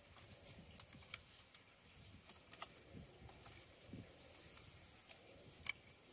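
Faint, scattered clicks and light metallic knocks as a replacement alternator is handled and worked into place on the engine.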